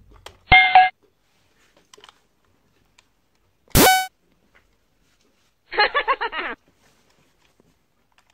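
Three brief electronic toy or cartoon sound effects with near silence between them: a short horn-like toot just after the start, a quick rising whistle about three seconds later, and a short burst of chattering, voice-like sound about two seconds after that.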